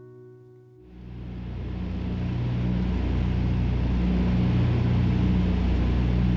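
A last guitar note dies away. About a second in, a low, steady engine drone with a slowly pulsing hum swells up over a couple of seconds, then holds steady.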